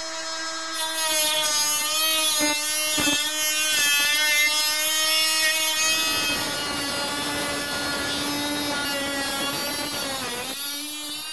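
Ryobi ONE+ HP brushless cordless cut-off tool with a small cut-off wheel, its motor whining at speed as it grinds through the thin sheet-steel skin of a steel door. The grinding hiss joins the whine about a second in and runs on steadily; the motor dips briefly near the end and then shuts off.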